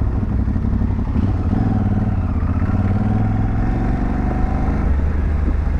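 Aprilia Tuareg 660's parallel-twin engine running under way on a dirt track. Its note rises about a second and a half in, then holds steady.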